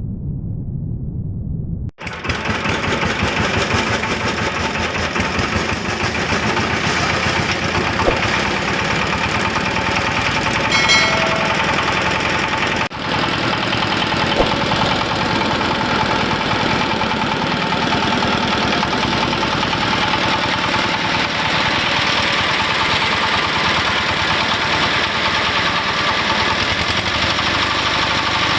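Engine-driven grass chopper and husk grinder running steadily with a loud, dense mechanical noise, starting about two seconds in after a short low rumble.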